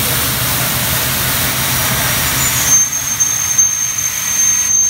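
Automatic drilling-tapping-sawing machine running: a steady hiss, then a little past halfway a high, steady whine sets in and holds.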